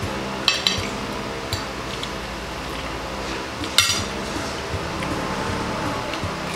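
Metal spoon and fork clinking and scraping on ceramic plates while eating, with a few sharp clinks, the loudest about four seconds in.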